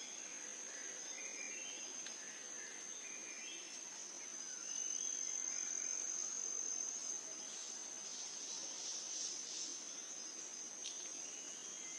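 Insects trilling steadily at a high pitch, a little louder for a couple of seconds mid-way, with faint short chirps scattered over the first half.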